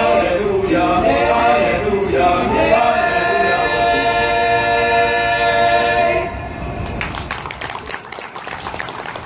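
Male choir singing a cappella in close harmony, closing on a long held final chord that cuts off about six seconds in. Scattered clapping follows.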